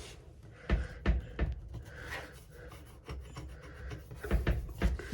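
Rubbing and wiping at the washing machine's door opening, a cleaning of the area under the door seal, with a few light knocks in the first second and a half and more clicks near the end.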